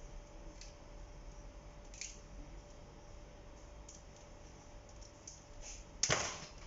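Faint scattered clicks and scrapes of small hand tools and plastic parts during a smartphone screen replacement, over a low steady hum. A short loud rustling knock comes near the end.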